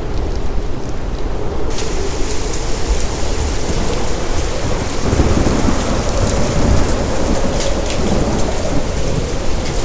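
Large hailstones, about 2 inches across, and heavy rain pounding down in a steady, dense roar, with single sharp hailstone impacts cracking through it.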